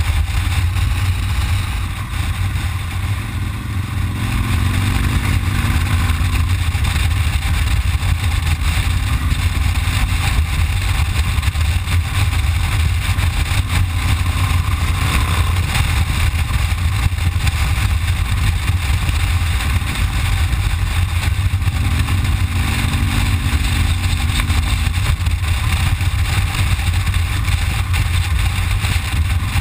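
Cruiser motorcycle running at road speed: a steady engine rumble mixed with rushing wind on the microphone, the engine note shifting slightly a few times.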